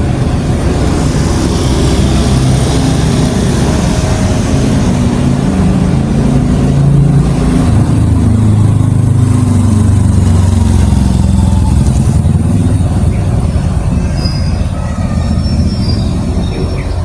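A heavy vehicle's engine rumbles loudly close by, growing loudest about halfway through and easing toward the end.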